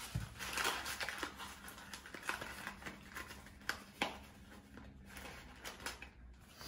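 Cardboard cornstarch box being handled, crinkling and rustling with scattered light clicks and taps, one sharper tap about four seconds in.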